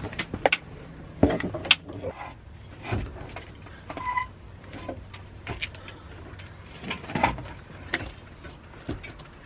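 Irregular metal knocks and clanks as a car engine is shifted and worked into the engine bay, catching against the suspension and mount brackets.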